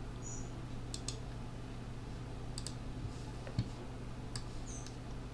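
A handful of sharp computer mouse and keyboard clicks, two of them coming as quick pairs, over a faint steady low hum.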